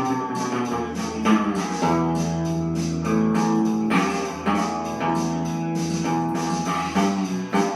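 Background music: a blues-style guitar track with a steady beat.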